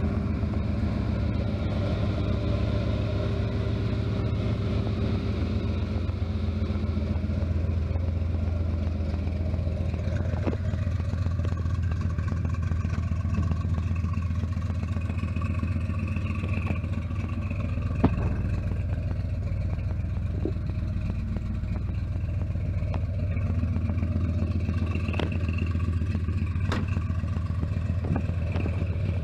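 1970 Chevrolet C10's 454 big-block V8 idling steadily, with one sharp click about two-thirds of the way through.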